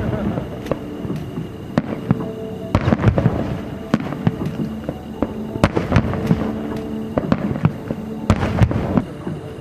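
Aerial fireworks shells bursting in quick succession, a string of sharp bangs and crackles at irregular intervals, with music playing underneath.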